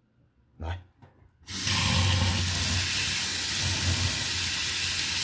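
Kitchen tap turned on about a second and a half in, then water running steadily from the faucet and splashing over a part held in the stream into a stainless steel sink.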